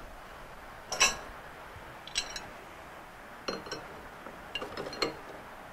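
Steel spanners clinking against each other and the CNC spindle's collet nut as they are brought in and fitted to tighten a router bit: one sharp clink about a second in, then several lighter clinks.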